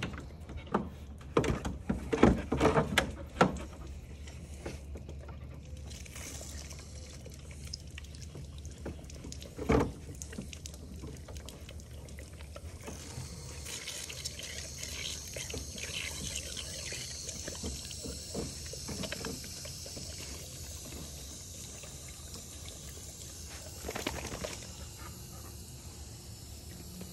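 Water spraying from a garden hose nozzle in a steady hiss while a dog laps at the stream. A few loud knocks and clatter come in the first few seconds, and a single thump about ten seconds in.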